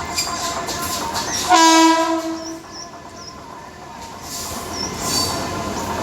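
A train horn gives one short, steady blast about a second and a half in, lasting about a second, over the running noise of a train at the station.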